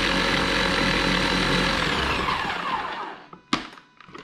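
Electric blending appliance's motor running at speed as it purées chimichurri, then switched off about three seconds in, its pitch falling as it spins down. A single sharp click follows.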